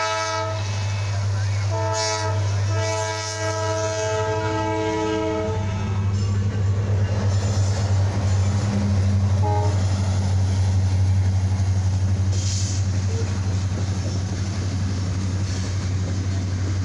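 Diesel freight locomotive's multi-note air horn sounding the grade-crossing signal: the end of a long blast, a short blast, then a final long blast of about three and a half seconds. The horn is followed by the steady low rumble of the locomotives and freight cars rolling past the crossing.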